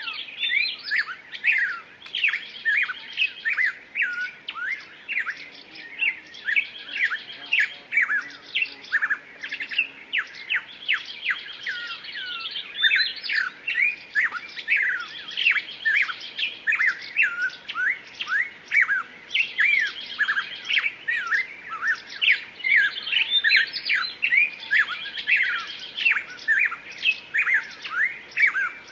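Several songbirds singing and chirping together in a steady chorus of quick, high twittering notes and short rising and falling sweeps.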